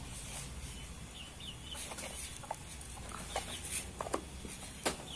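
Chickens clucking faintly, with a few sharp clicks scattered through the second half.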